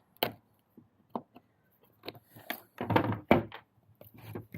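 Hand tool knocking against the hard case while prying at stuck, glued bits of an old latch protector: a few sharp single knocks, then a louder run of knocks and clatter about three seconds in.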